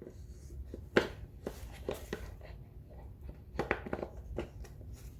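Honda GC190 plastic air cleaner cover being fitted back onto its hinges: a series of light plastic clicks and knocks, the sharpest about a second in and a quick cluster near the end.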